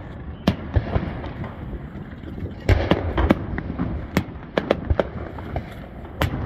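Aerial firework shells launching and bursting in a fireworks show: an irregular string of sharp booms and cracks, coming thickest about three seconds in.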